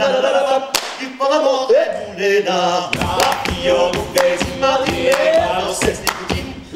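Male vocal group singing in polyphony without instruments, with hand clapping coming in as a beat about three seconds in.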